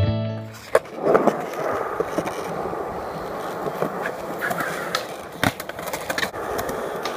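Skateboard rolling, its wheels giving a steady rumble, with a few sharp clacks.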